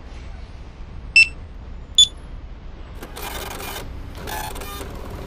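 Cash machine keypad beeps, two short electronic beeps about a second apart, the second higher. Then two bursts of mechanical whirring noise, each just under a second long, as the machine processes the request.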